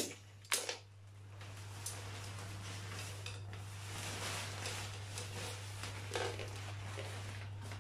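Rustling of a pop-up play tent's thin synthetic fabric being handled while its poles are fitted, with a couple of sharp clicks about half a second in.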